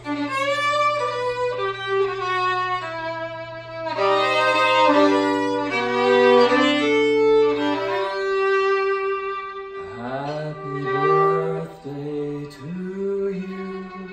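Solo violin played with a bow, a melody of quickly changing notes. About ten seconds in, a lower line, below the violin's range, comes in alongside it, sliding up into each note.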